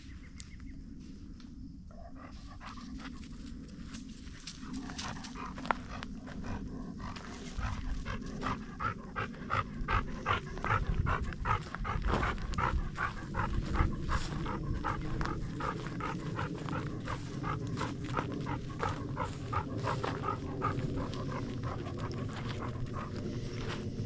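A dog panting rapidly, about three breaths a second, starting faintly and growing louder from about seven seconds in.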